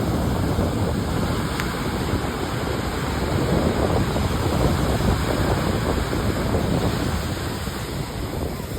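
Ocean surf washing in steadily, a continuous low noise, with wind buffeting the microphone.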